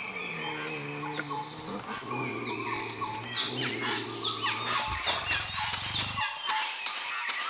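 Animal sound effects from a projection show: many short bird chirps and whistles over a steady low growl from the projected leopard, which stops about six seconds in. A run of sharp clicks comes near the end.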